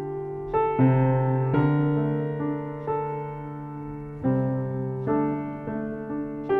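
Slow piano music: notes and chords struck about once a second, each left to ring and fade.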